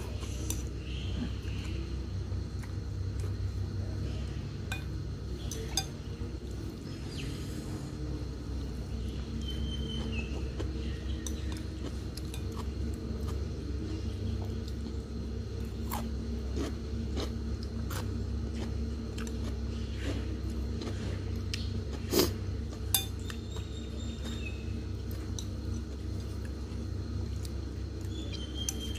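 Eating noodles with chopsticks from a porcelain bowl: slurping and chewing, with scattered sharp clicks of the chopsticks against the bowl, the loudest about two-thirds of the way through. A steady low hum runs underneath.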